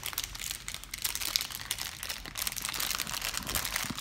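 Foil blind-bag pouch of a Funko Mystery Mini crinkling and crackling in a child's hands as he works at it to tear it open.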